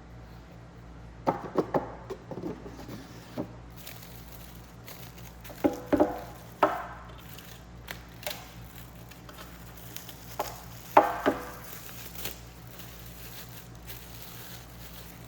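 Hard parts of a Fiorenzato Pietro manual coffee grinder being handled on a bench: scattered clicks and knocks in a few short clusters, the loudest about eleven seconds in, over a low steady hum.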